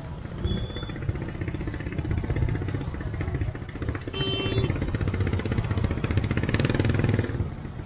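Small motor-scooter engines idling and puttering in a dense jam of motorbikes and cars, the nearby engines picking up louder about four seconds in and easing off near the end. A brief high-pitched tone sounds as the engines pick up.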